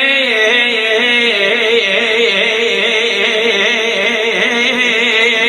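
A solo singer's voice in Iraqi vocal style, drawing out one long sung note with quick wavering turns of pitch up and down throughout.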